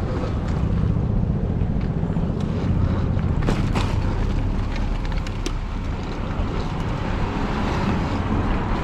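Wind rushing over the microphone and road noise from a moving e-bike, steady throughout, with a few sharp clicks about three and a half seconds in.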